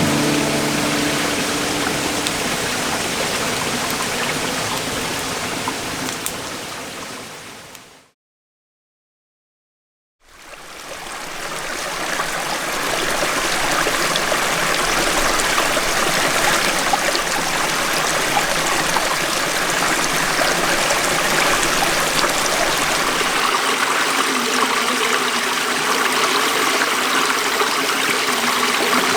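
Mountain stream rushing over rocks, a steady loud water noise. About eight seconds in it fades out to brief silence, then fades back in.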